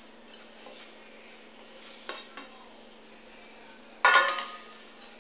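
Stainless steel plate and steel bowl clinking together as grated coconut is tipped and scraped into the flour: a few light clinks, then one loud ringing clang about four seconds in.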